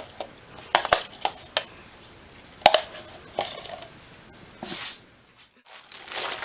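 A metal spoon clinking against a glass bowl and a plastic cup as oil is scraped out: several sharp clinks with a short ring, about a second apart, then a brief rustle of handling near the end.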